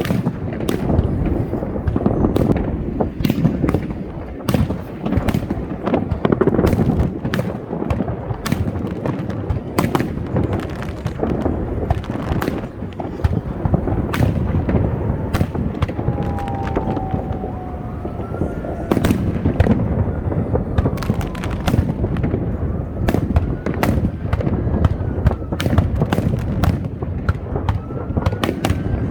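Fireworks show in progress: a rapid, continuous string of sharp bangs and crackles over a dense low rumble of bursting shells, with a few faint rising-and-falling whistles in the second half.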